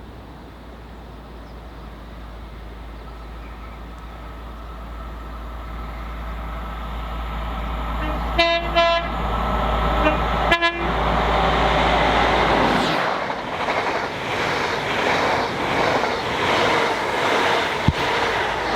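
An approaching train growing louder, sounding its horn in three short blasts, then rushing past with a regular clatter from the wheels.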